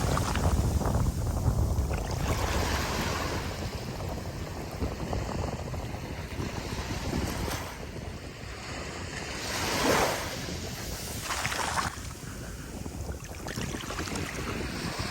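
Ocean surf breaking and washing up a beach in a steady noisy wash, with wind buffeting the microphone. A wave surges loudest about ten seconds in, and a smaller one follows soon after.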